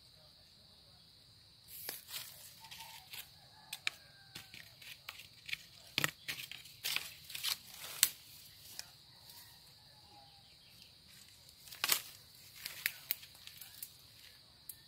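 Goat browsing in brush: irregular rustling, leaf tearing and sharp snaps of twigs and stems, starting about two seconds in, over a steady high-pitched insect buzz.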